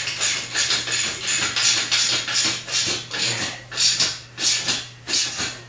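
Hand ratchet clicking in short, quick back-strokes, about two to three a second, as a 17 mm bolt on a steel engine stand upright is tightened down.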